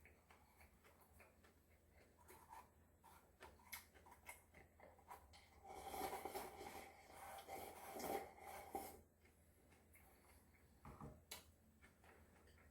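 Close-miked eating sounds: soft mouth clicks, then a few seconds of louder wet chewing a little past the middle, and a couple more clicks near the end.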